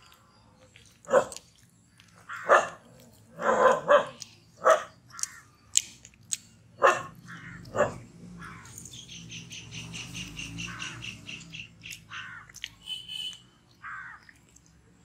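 A dog barking about seven times in the first half. After that, a bird calls in a fast, evenly repeated series of high chirps for about three seconds.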